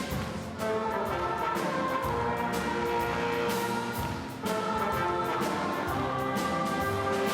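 Live orchestra playing a classical piece, with full sustained chords and brass in the mix. The music swells into a new, louder phrase about half a second in and again about four and a half seconds in.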